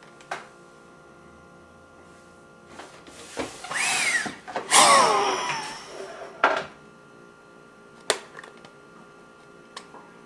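A sharp breath in, then a forceful blow out through the mouthpiece of an SDI Astra Touch turbine spirometer, lasting about a second and a half and trailing off with a whistle that falls in pitch: the forced vital capacity (FVC) maneuver. A few light knocks come before and after.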